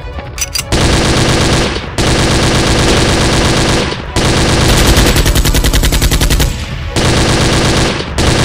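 Automatic machine-gun fire sound effect, rapid shots in several long bursts of one to two seconds each with short breaks between, dubbed over toy blasters being fired.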